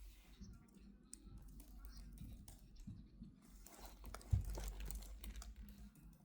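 Handling noises from sneakers and their packaging: scattered small clicks and light rustling, with one louder knock a little past the middle.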